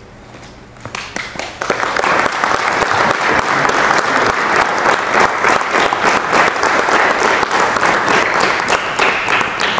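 Audience applauding: a dense patter of many hands clapping. It begins about a second in, swells quickly, holds steady and stops near the end.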